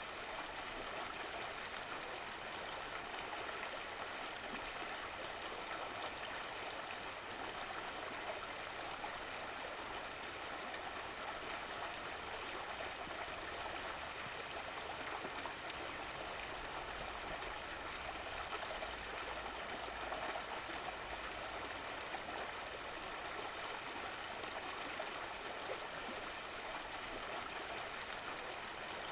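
Running water of a stream, flowing and burbling steadily.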